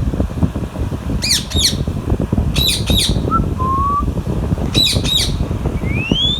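Pet parakeet screeching in three quick pairs of sharp, high squawks, with a couple of soft short whistles between them and a rising whistle near the end. A steady low rumble runs underneath.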